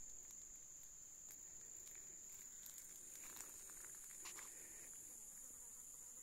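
Near silence: a faint, steady high-pitched whine with a few faint ticks.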